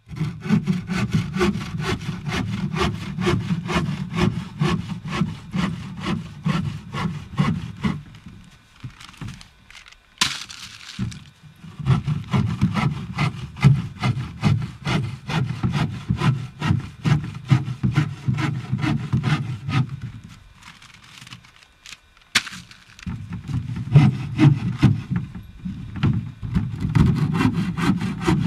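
Bow saw cutting through wood with steady back-and-forth strokes, in three bouts with short pauses. A single sharp knock sounds in each of the two pauses.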